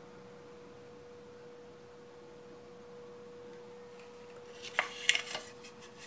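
A faint steady hum on one pitch, then a short clatter of sharp knocks and taps about five seconds in.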